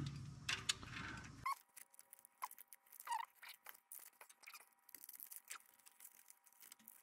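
Faint, scattered small ticks and a few short chirps from handling an engine wiring harness and a tester probe while checking wires.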